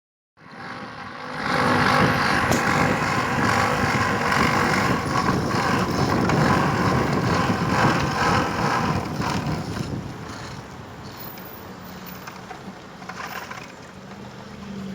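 Motorcycle engine running, loud for the first several seconds and then easing to a lower, steadier level about two-thirds of the way through.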